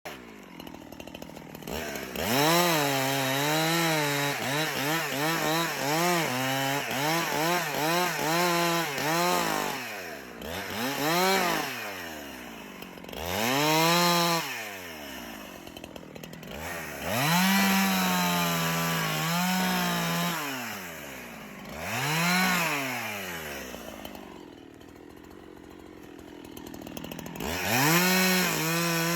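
Chainsaw running and cutting wood, its engine pitch rising and falling in repeated swells as it is throttled up and eased off, with a quieter lull near the end before it revs up again.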